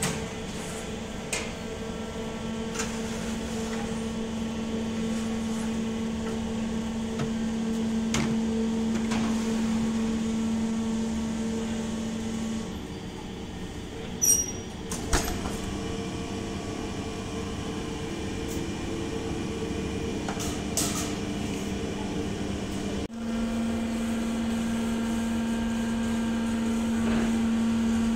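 Steady electric machine hum of commercial bakery equipment. It drops away about halfway through and comes back louder near the end. In between there are two sharp metal clunks as the rack oven's door is shut.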